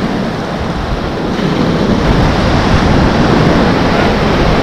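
Surf breaking and washing up the shore, with wind buffeting the microphone.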